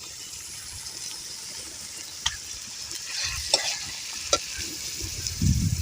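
Goat intestine pieces sizzling as they fry in a pan while being stirred, with a steady high hiss and three sharp clicks of the stirring utensil against the pan in the middle. A short low thud comes near the end.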